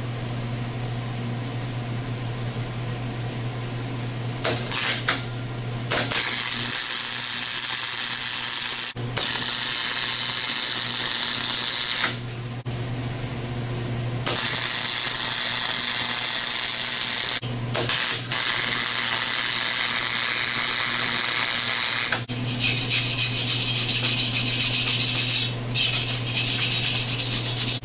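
Arc welding rebar braces to steel: a couple of short tack strikes, then four runs of crackling, hissing arc, each a few seconds long, starting about six seconds in. Near the end, a wire brush scrubs the fresh welds in rapid rhythmic strokes over a steady low hum.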